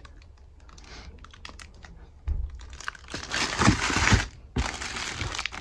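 Clear plastic bags wrapped around a pair of trainers crinkling as they are handled, with scattered light clicks and a few soft bumps. The crinkling is loudest from about two seconds in until about four and a half seconds in.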